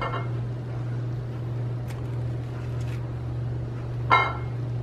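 Steady low hum, with a few faint clicks of a small knife cutting a nectarine held in the hand, and a brief pitched sound about four seconds in.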